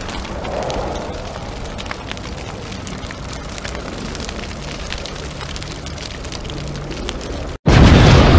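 Steady low rumbling noise scattered with many small crackles and pops. Near the end it cuts out for an instant and comes back as a louder rumble.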